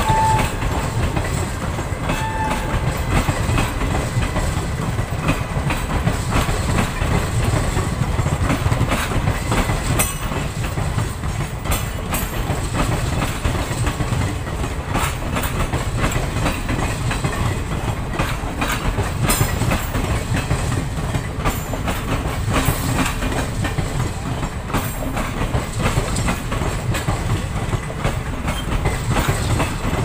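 Passenger coaches of an Indian Railways express train rolling past at speed: a steady low rolling noise with wheels clicking over rail joints throughout.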